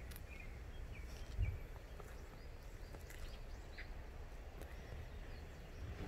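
Outdoor garden ambience: faint, scattered short bird chirps over a steady low rumble, with one brief low thump about one and a half seconds in.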